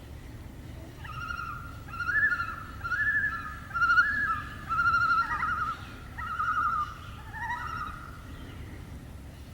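Common loon tremolo call: a quavering, laugh-like wavering cry repeated in a run of about seven phrases, with overlapping pitches. It starts about a second in and fades out near the end.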